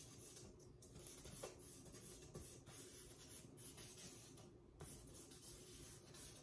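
Faint scratching of a stick of vine charcoal drawn across drawing paper, in irregular strokes with brief pauses.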